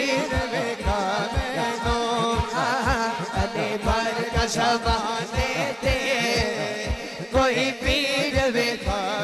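A male naat reciter singing a long, ornamented line of a Punjabi manqabat in praise of Ali, over a quick, steady low beat.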